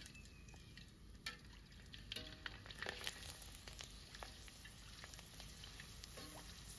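A shrimp cracker frying in hot oil in a metal wok, sizzling steadily. A metal spatula knocks against the wok several times with short metallic clinks.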